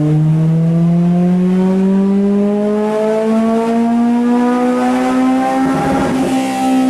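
Car engine at full throttle on a chassis dyno, its pitch climbing steadily through one gear toward redline. A short burst of noise breaks in about six seconds in, and the revs level off near the top.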